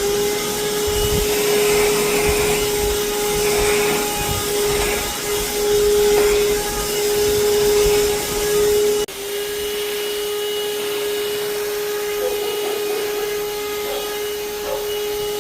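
Mini vacuum cleaner's motor running with a steady, level-pitched hum and suction hiss, with bumps and rumble during the first half. About nine seconds in the sound breaks off sharply for an instant, then the hum runs on slightly quieter and smoother.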